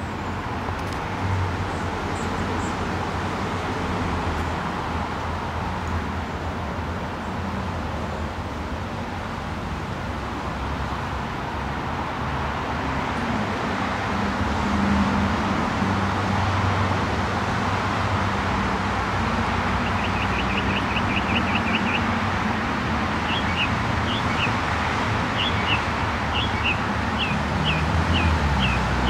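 Steady outdoor background rumble and hiss, like distant road traffic. About two-thirds of the way in, short high chirps begin, first in a quick run, then spaced about half a second apart, then quick again near the end.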